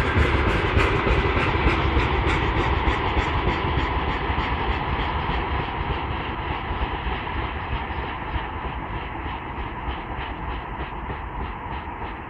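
Freight train wagons rolling past, their wheels clacking over the rail joints about three times a second over a steady rumble. The sound fades as the end of the train moves away.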